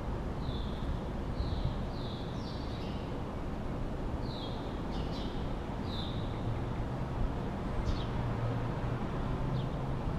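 A small bird calling over and over in short descending chirps, several in quick succession through the first six seconds and a few sharper notes after, over a steady low rumble.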